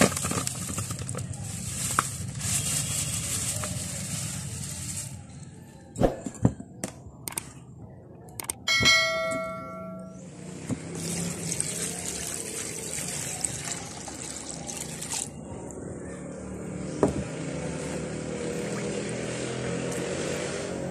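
Fresh whole fish tipped from a plastic bag into a plastic basin of water, splashing and sloshing, then handled by hand in the water. About nine seconds in, a few clicks and a short bell-like chime from a subscribe-button overlay.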